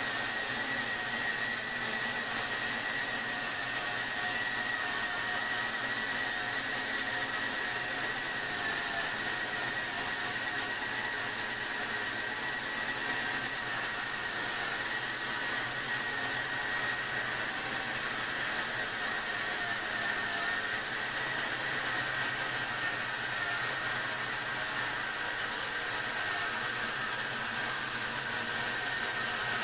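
Homemade sawmill running steadily while cutting a poplar log lengthwise into a board, a continuous machine noise with a high whine that drops a little in pitch over the last third.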